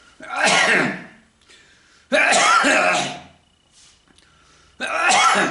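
A person coughing hard in three harsh fits of about a second each, with short gaps between them: choking coughs.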